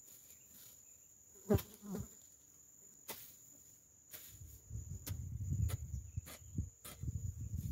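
Steady high-pitched drone of insects in the field, with two short pitched squeaks about a second and a half in. From about four seconds in come low scuffing thuds of footsteps on the soil.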